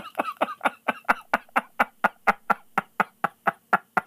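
A man laughing hard in a long run of short bursts, about four or five a second, growing fainter toward the end.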